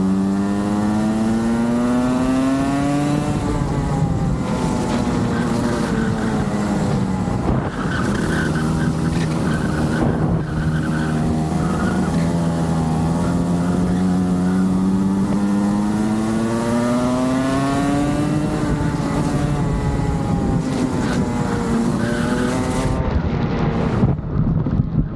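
Rotax kart's two-stroke engine running hard on track, its pitch climbing over the first few seconds, dropping sharply, then climbing slowly again before falling and rising once more near the end, with wind noise on the microphone.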